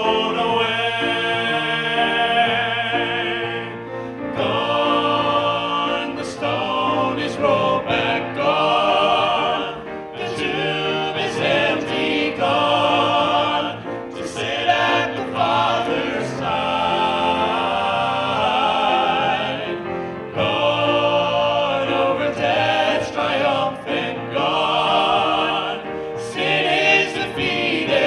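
A vocal group singing a gospel song, with long held notes sung with vibrato.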